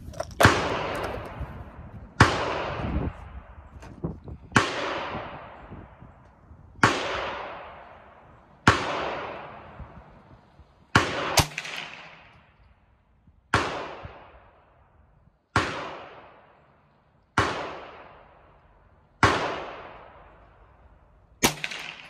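A .22 rifle firing slow, aimed shots, about eleven of them, one every two seconds or so. Each crack has a long echoing decay. Two shots come close together about eleven seconds in.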